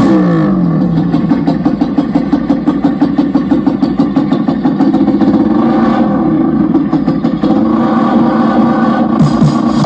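Loud electronic dance track played through a large car-mounted sound system, in a stretch dominated by a buzzing, engine-like tone. The tone sweeps down at the start, then holds steady with a fast pulsing.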